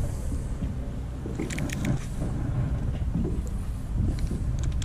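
An engine running with a steady low rumble, with a few short light clicks about one and a half seconds in and again near the end.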